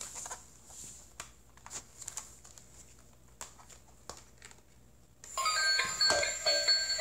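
Light plastic clicks and knocks as a battery-operated musical toy mouse with a birthday cake is handled, then about five seconds in the toy switches on and plays a loud electronic beeping melody of short, evenly paced notes.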